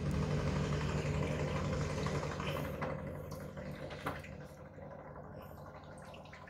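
An engine running with a steady low hum, loudest at first and slowly fading, with a short knock about four seconds in.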